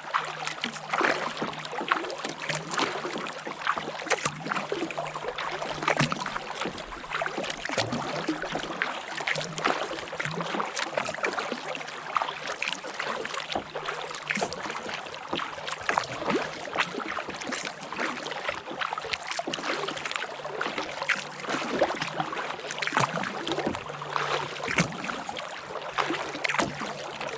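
Kayak paddling: paddle blades dipping and splashing in the water with a continuous wash of water along the hull, made up of many irregular splashes.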